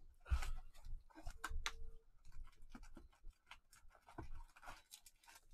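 Cardboard rustling and scraping as gloved hands open a trading-card hobby box and slide out its inner tray of foil packs, with scattered light taps and clicks; a knock just after the start and two sharp clicks about a second and a half in are the loudest.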